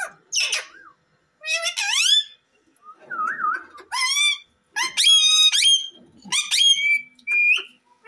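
Rose-ringed parakeets calling: a string of short, high, whistle-like calls that rise and fall in pitch, loudest around the middle.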